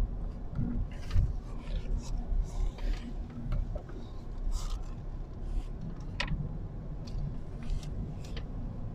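Low, steady road and engine rumble inside a moving car's cabin as it turns and drives on, with short, irregular rubbing and scraping noises over it.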